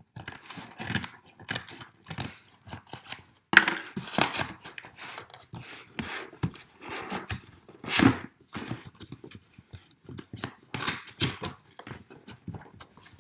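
A cardboard starter-kit box being opened by hand: irregular rustling, scraping and clicking of cardboard and packaging, with a sudden louder sound about three and a half seconds in and another about eight seconds in.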